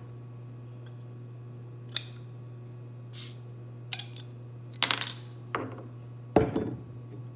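Glass Jarritos soda bottles being handled on a table: a few light clicks, then sharp glass clinks with a ringing tone about five seconds in, and a heavier knock as a bottle is set down near the end.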